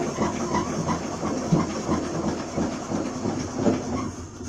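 The steamship's steam machinery running, with a rhythmic hissing and clattering that stops sharply near the end.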